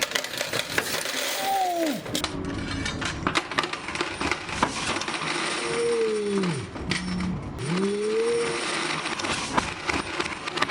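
Quarters clinking and dropping in a coin pusher machine: a steady stream of sharp metallic clicks as coins land and knock together. A few sweeping tones fall and rise over them, once early and again midway.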